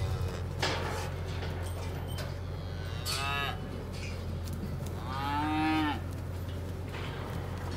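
Cattle mooing and bawling in a pen: a short call about three seconds in and a longer one about five seconds in, over a steady low hum.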